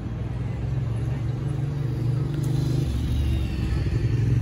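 Road traffic: a motor vehicle's engine hum with a low rumble, growing steadily louder.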